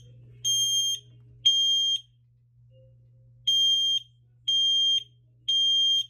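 Battery-powered smoke alarm sounding its high-pitched three-beep fire pattern while its button is pressed: two half-second beeps that end one group of three, a pause of about a second and a half, then three more beeps.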